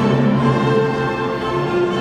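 Orchestral show music with held string notes, played loud over a theatre's sound system.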